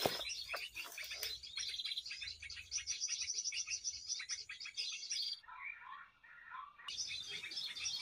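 Dense, rapid chirping and trilling of many small birds, from a bird-call lure recording played to draw birds to glue-coated branches. About five seconds in, the high chirping breaks off for a second or so and lower chirps come through before it resumes.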